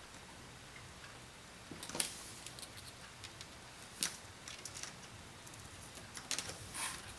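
Faint scattered clicks and light taps as the old power/volume flex cable is peeled off its adhesive inside an iPad 2, with sharper taps about 2 and 4 seconds in and a quick cluster near the end.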